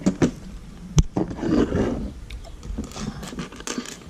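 Plastic Lego bricks being handled and clicked together on a plastic tabletop, with a sharp click about a second in.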